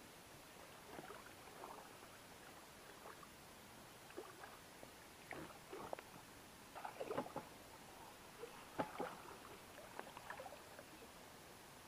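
Hooked wels catfish splashing at the surface beside a float tube's pontoon: a scattered series of short splashes and sloshes, the loudest about seven and nine seconds in.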